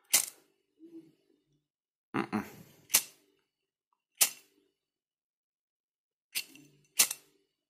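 Zippo-style lighter filled with kerosene being struck again and again: six or so sharp metallic clicks and rasps of the flint wheel and lid. The wick is not catching on the kerosene.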